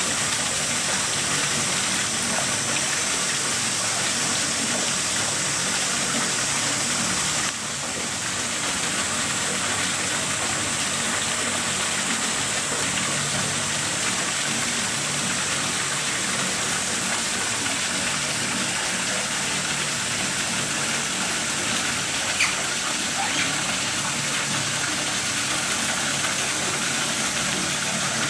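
Steady rushing of running water into the otter pool, an even hiss that drops slightly in level about a quarter of the way in, with a faint click near the end.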